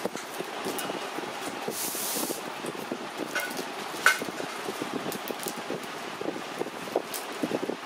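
Steady background din with scattered light clicks and knocks, a brief hiss about two seconds in and a sharper click about four seconds in.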